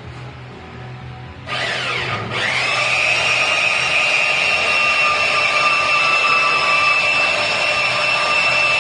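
A power tool starts about a second and a half in, its pitch dipping briefly under load, then running on as a steady high-pitched whine.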